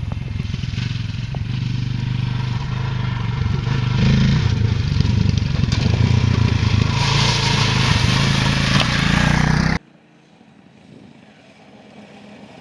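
Adventure motorcycle engine running under way, with wind and road noise. It grows louder about four seconds in, then cuts off abruptly near the end, leaving a much quieter background.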